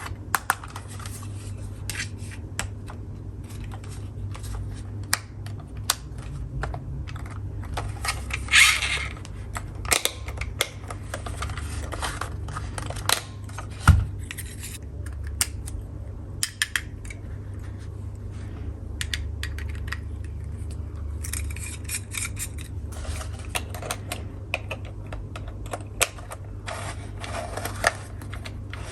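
Small plastic toy tools and their packaging being handled: scattered light clicks and taps, a short rustle about nine seconds in and one heavier knock about fourteen seconds in, over a steady low hum.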